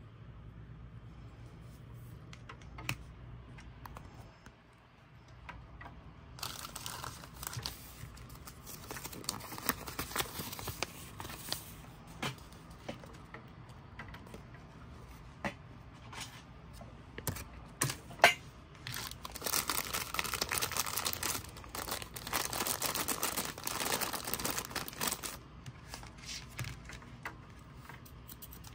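Plastic and paper toy packaging crinkling and rustling as a blind-bag toy is unwrapped, with scattered sharp clicks. The crinkling starts about a quarter of the way in and is densest in the second half.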